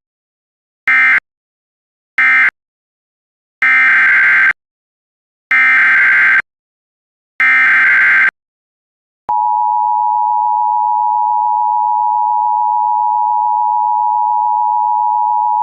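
Emergency Alert System SAME digital data bursts with their shrill buzzy warble: two short end-of-message bursts, then three longer header bursts of about a second each, announcing a new alert. About nine seconds in, a steady alert attention tone starts and holds.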